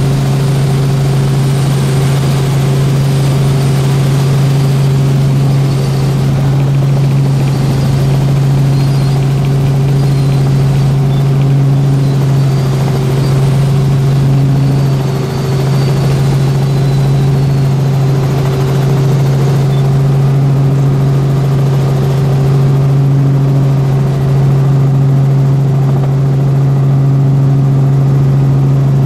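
Robinson R44 Clipper helicopter heard from inside the cabin in flight: its piston engine and rotors make a loud, steady drone with a strong low hum.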